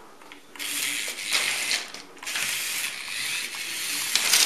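Zip Zap micro RC monster truck's tiny electric motor and gears whirring in a high buzz as it drives across a tiled tabletop. The buzz starts about half a second in and comes in spurts as the throttle is worked, with a short pause near the middle.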